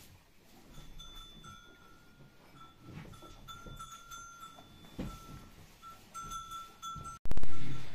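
A calf drinking water from a plastic bucket: soft, irregular slurping and sucking. About seven seconds in there is a sudden loud knock.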